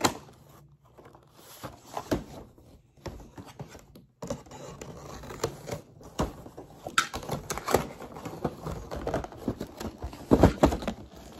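A cardboard toy box and its plastic packaging tray being handled: irregular rustling, scraping and light knocks, with the loudest knocks near the end.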